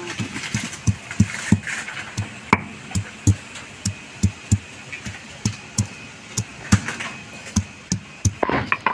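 A stone pestle (nora) pounding chunks of ginger on a flat grinding stone (shil), sharp knocks about three times a second. The strokes crush the ginger before it is ground into paste.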